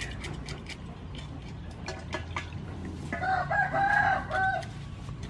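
A knife scraping scales off a fish in a run of short, quick strokes. About three seconds in, a rooster crows in several linked notes, louder than the scraping, for about a second and a half.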